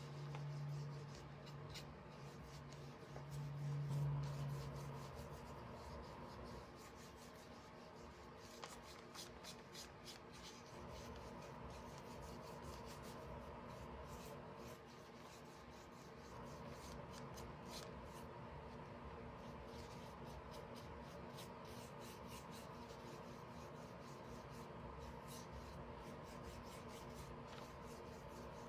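Paintbrush stroking paint onto a flat wooden cutout: faint, soft brushing strokes. A low steady hum sounds through the first five seconds or so.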